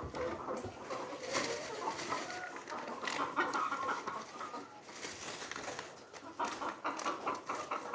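A flock of chickens clucking and calling over one another in many short, overlapping calls, with a few sharp clicks among them.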